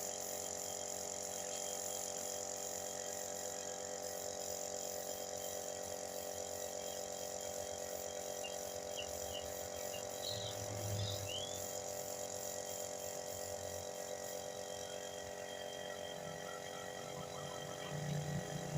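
A steady mechanical hum made up of several even tones over a constant high hiss, with a few short, high chirps about halfway through.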